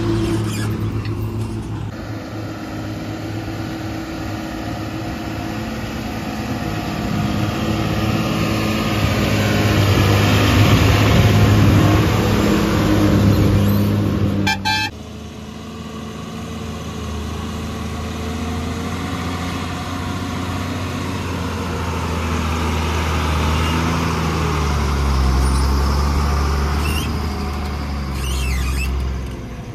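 Tata 2518 tipper truck's diesel engine running under load as the truck crawls through wet mud. About halfway through the sound cuts off abruptly and resumes with a lower engine note.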